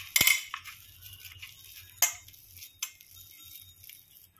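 Hands working a ball of stiff fenugreek dough in a stainless steel bowl, with a few sharp clinks and knocks against the bowl: the loudest just after the start, another about two seconds in and a smaller one a little later.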